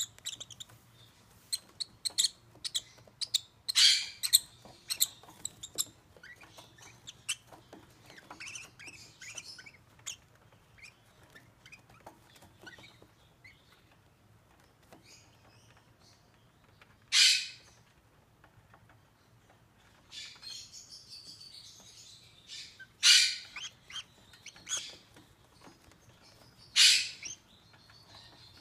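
Young peach-faced lovebirds chirping and twittering in quick, short high notes, with a few much louder, high-pitched calls of about half a second each breaking through at intervals.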